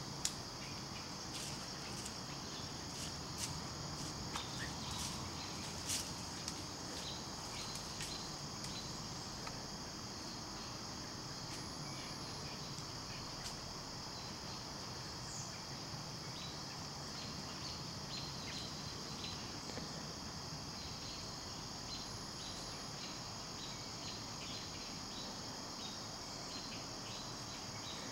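Steady high chorus of crickets, with scattered light clicks and rustles, most of them in the first eight seconds or so.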